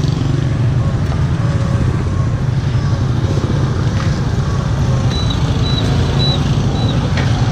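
Small motor scooters idling and riding slowly past close by in street traffic, a steady low engine drone. A little past the middle come four short, evenly spaced high beeps.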